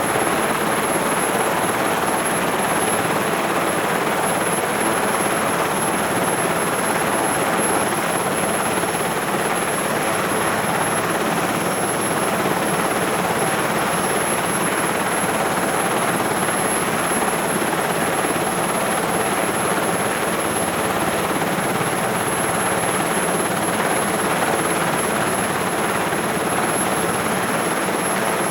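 SH-3 Sea King helicopter idling, heard from inside the cabin: its twin turboshaft engines and rotor make a steady, dense roar with a thin high whine held over it.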